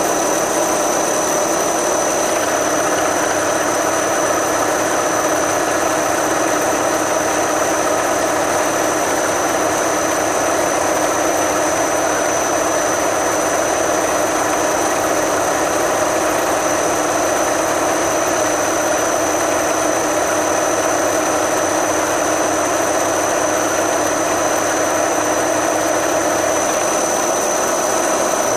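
Milling machine running with a spiral end mill cutting into a clamped steel bar: a steady machining drone with a constant high whine over it.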